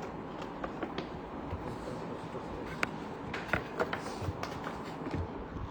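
Objects being handled on a bench: a few light clicks and taps over a steady background hiss, the sharpest a little before the middle and about two-thirds of the way through.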